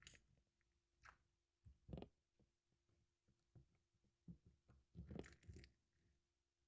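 Mixed slime being kneaded and pressed by hand: soft squishing with small crackling pops. They come in short clusters, with a longer run about five seconds in.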